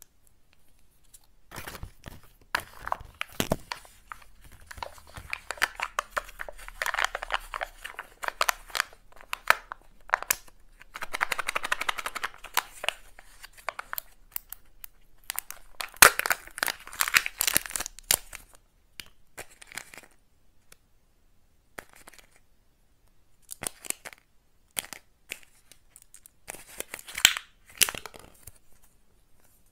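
Kinder Joy eggs being opened by hand: foil seals peeled and torn off the plastic halves, with crinkling packaging and sharp clicks of the plastic shells and spoon. It comes in irregular bursts, the longest about 11 and 16 seconds in, with short pauses between.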